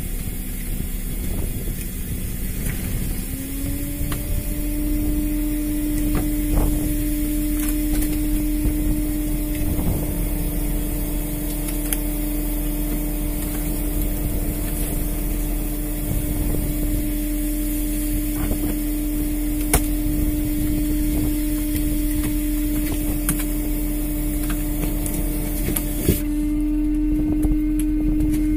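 Machinery running on a fishing boat: a steady motor whine that climbs in pitch a few seconds in and then holds, over a constant engine rumble, with a few sharp clicks.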